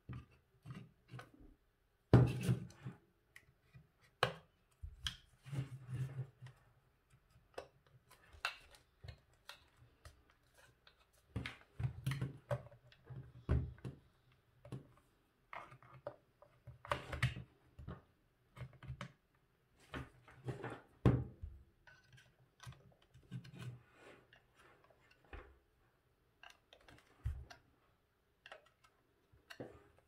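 Irregular clicks, knocks and scrapes of hard plastic as a Braun Satin Hair 7 hair dryer is handled and its plastic housing is pried apart at the handle with a plastic pry tool.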